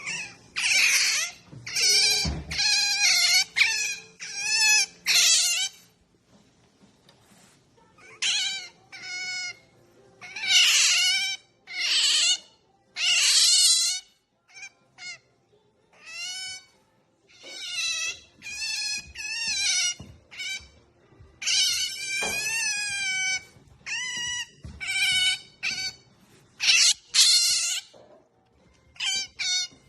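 Pet otter calling over and over in high, wavering squeals, begging for food. The calls come in quick runs, with a pause of about two seconds some six seconds in.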